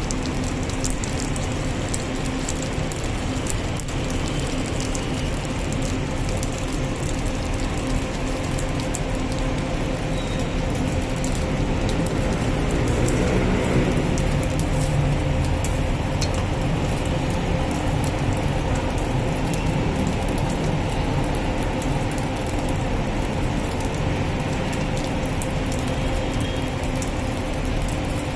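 Noodles being stir-fried: a steady sizzling hiss with dense rapid clicking and clatter of metal cooking tools, over a steady hum.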